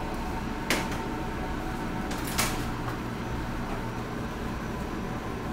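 Two short knocks of kitchenware being handled, about a second in and again near the middle, over a steady low kitchen hum.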